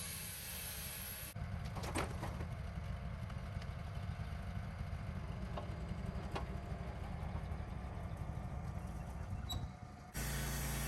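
Wood-Mizer LT15 portable band sawmill running steadily with a low rumble, with a few sharp clicks and knocks. The sound changes abruptly about a second in and again near the end.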